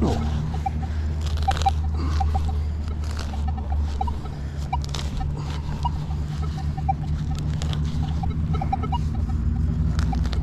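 Digging into soil with a shovel: scattered scrapes and chops of the blade in the ground. Under them runs a steady low rumble, and short high chirps are dotted throughout.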